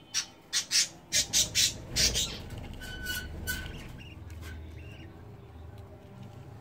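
Budgerigars squawking: a quick run of about seven loud, harsh squawks in the first two seconds, then softer, scattered chirps.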